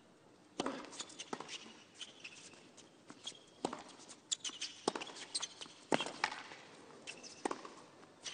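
Tennis ball being hit back and forth in a rally: sharp, separate pops of racquet strikes and ball bounces about a second apart, with shoes squeaking on the hard court between them.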